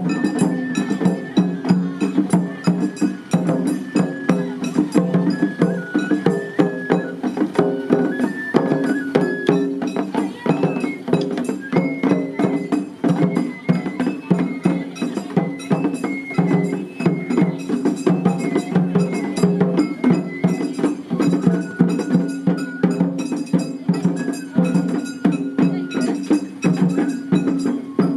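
Japanese festival hayashi played by children: fast, steady drum and metal-bell strikes under a stepping bamboo-flute melody that holds each note for about half a second to a second.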